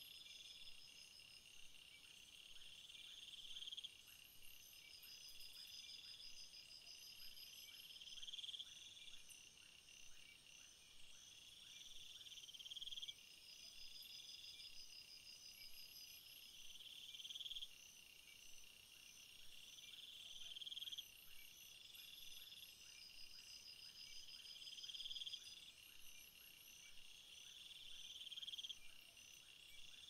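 Faint insect chorus, cricket-like: a steady high trilling, with a louder call that swells over two or three seconds and stops abruptly, repeating about every four seconds.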